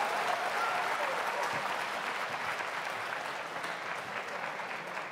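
Audience applauding, the clapping slowly dying away and thinning to a few separate claps near the end.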